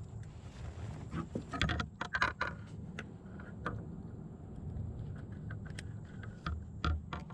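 Sharp clicks and light rattles of fishing tackle being handled in a kayak, a quick cluster about one to two and a half seconds in and a few single clicks later.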